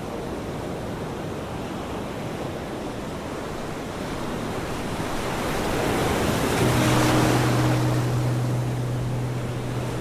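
Ocean surf: a steady wash of waves that swells into a louder breaking wave about six seconds in, with a low steady tone coming in under it near the same time.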